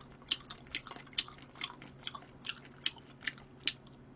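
Close-miked chewing of spicy chicken feet: a run of short, wet clicking mouth sounds, about two or three a second.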